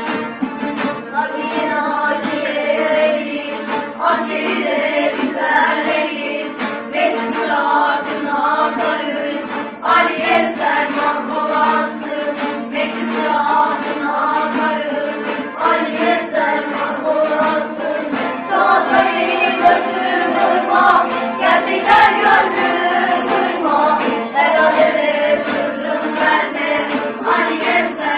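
An ensemble of bağlamas (long-necked Turkish saz lutes) playing a folk tune together, with a group of voices singing along.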